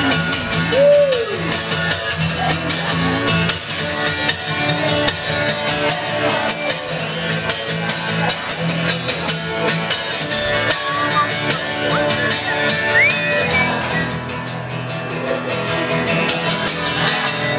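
Live music: an acoustic guitar strummed steadily through the song's instrumental break, with no singing.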